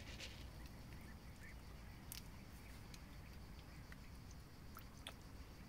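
Faint, scattered pops and smacks of koi and goldfish sucking floating feed pellets from the water surface, over a low steady rumble.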